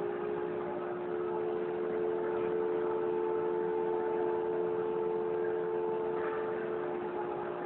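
A CNC machine's spindle motor running at a steady speed, giving a steady whine made of a few held tones.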